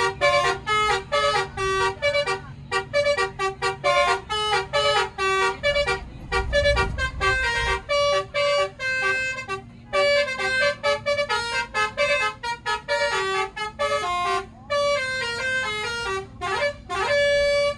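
Tour bus's telolet horn, a set of electrically switched air horns, playing a fast tune of short notes in changing pitches, ending on one long held note. A low rumble comes in briefly about six seconds in.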